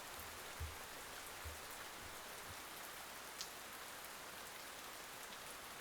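Steady rain, an even soft hiss, with a few faint low thumps of drops in the first few seconds.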